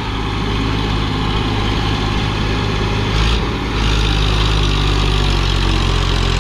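Tractor diesel engine running steadily, a little louder from about four seconds in.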